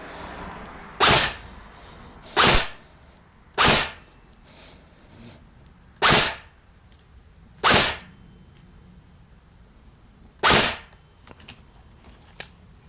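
Tokyo Marui next-generation electric airsoft gun (SCAR-L) firing six single shots, one at a time at irregular intervals, with a short sharp click near the end.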